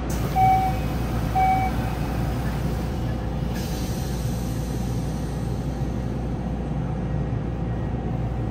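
A Yokohama Municipal Subway 4000-series car's door-closing chime, two short beeps about a second apart. The doors then slide shut about three and a half seconds in, over the steady low hum of the standing train.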